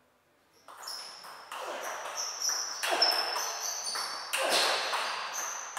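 Table tennis rally: the ball clicking sharply off the bats and bouncing on the table, one hit or bounce after another, each with a short echo. The first click comes just under a second in, after a quiet serve toss.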